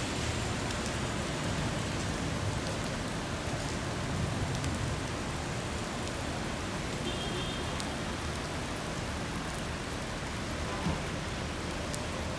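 Steady heavy rain falling on wet pavement and street, an even hiss with scattered drop ticks.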